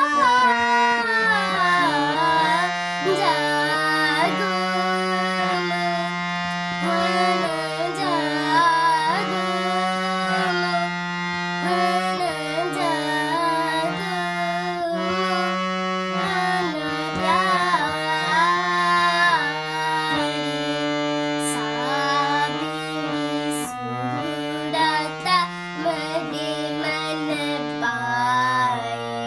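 A young girl singing a chhota khayal in Raag Bhairav in teentaal, accompanying herself on a harmonium. The harmonium holds steady reed notes under her voice, which glides and ornaments between pitches.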